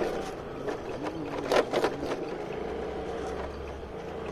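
Motor scooter engine running steadily while riding, with road and wind noise. A few brief sharp noises come about one and a half seconds in.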